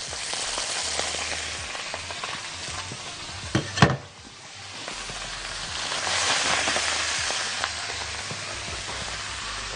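Cut pieces of Egyptian sausage sizzling in hot olive oil in a frying pan as they are tipped in. A short loud knock comes about four seconds in, and the sizzle swells again around six seconds.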